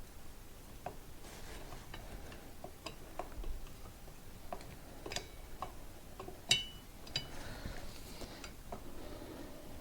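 Scattered light metallic clicks and clinks of tools and parts being handled during motorcycle front-end reassembly, the loudest a sharp ringing clink about six and a half seconds in.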